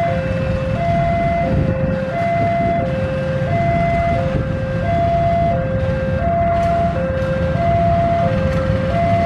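Railway level-crossing warning alarm sounding its repeating two-note electronic tone, a higher and a lower note swapping about every 0.7 s, over the steady low rumble of a diesel locomotive's engine.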